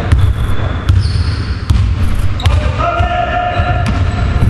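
A basketball being dribbled on a hardwood gym floor, its bounces knocking and echoing around the hall, with a few short sneaker squeaks. About two and a half seconds in, a voice calls out and holds the call for over a second.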